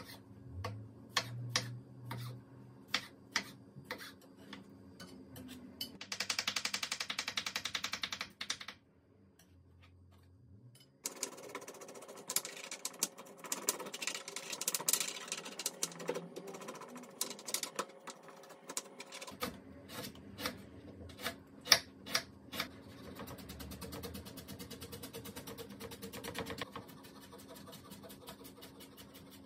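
Kitchen knife clicking and knocking on a plastic cutting board as a tomato is cut into wedges and a knob of ginger has its skin scraped off, with scratchy scraping stretches. In the second half comes quick, even chopping as the ginger is minced.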